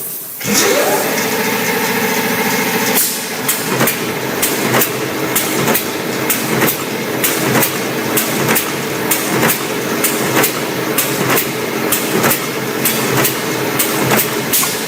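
Automatic wire-feeding, cutting and spot-welding machine for spiral fan guard frames running at high speed. A steady motor whine for the first few seconds, then sharp clacks about twice a second over continuous mechanical noise as the machine cycles.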